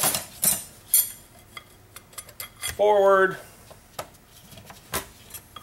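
Clutch steels and friction plates clinking against each other and the metal drum as they are laid one by one into a TH400 direct clutch drum: several sharp metallic clinks about a second apart.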